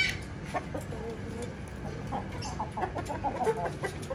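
Aseel chickens clucking: a short high-pitched call right at the start, then a run of low clucks in the second half.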